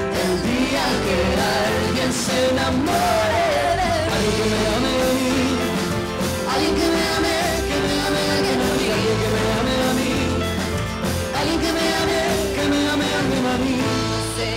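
Live pop song: singing over an acoustic guitar and a band, playing steadily throughout.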